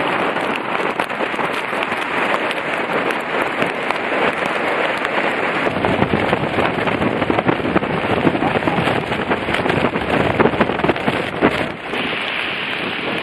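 Hurricane wind and driving rain beating on the microphone, with a dense crackle of drops strikes and gusts; the sound grows deeper and heavier about six seconds in.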